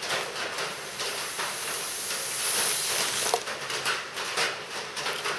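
Breath blown through a plastic tube into a heat-sealed plastic bag bladder, inflating it for a pressure test of its seams: a steady hiss of air that fades after about three seconds, then a few short crackles as the bag fills out.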